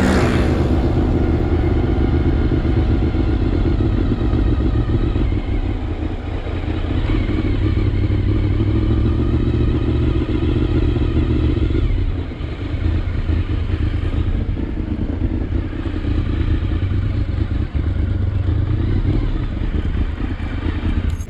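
Honda VFR750 V4 engine running steadily while the motorcycle is ridden, then dropping somewhat in level about twelve seconds in.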